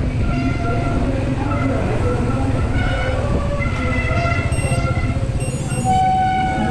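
Steady low rumble and buzz of a gravel bike rolling over wet brick paving, with wind on the bike-mounted microphone. Short squeaks and tones from the riding group come and go over it, the loudest held briefly about six seconds in.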